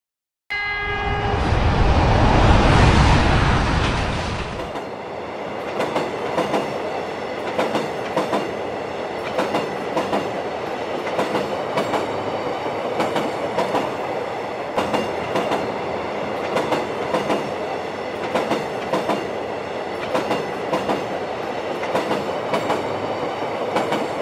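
Freight train passing: after a sudden start, a diesel locomotive gives a short horn blast and rumbles loudly by, then the freight wagons roll past with a steady rumble and regular clickety-clack of wheels over rail joints.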